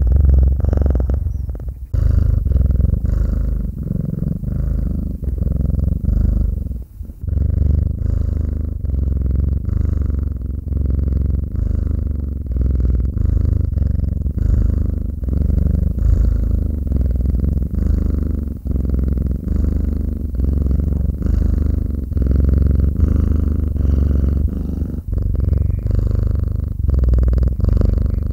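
Domestic cat purring close to the microphone: a steady low rumble that swells and dips with each breath in and out.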